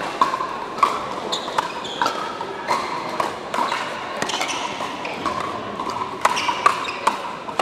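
Pickleball rally: a plastic perforated ball struck back and forth by hard paddles, a run of sharp pops about one to two a second, echoing in a large indoor hall.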